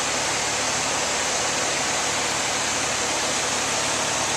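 A Rheem 3-ton residential AC condenser running: its fan gives a steady rush of air over a faint low hum. The compressor, wrapped in a sound blanket, is not heard.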